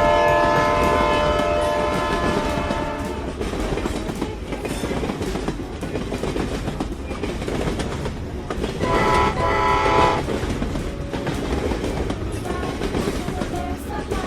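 Train horn sounding a chord for about three seconds over the continuous rumble and wheel clatter of a running train, then a second, shorter horn blast about nine seconds in.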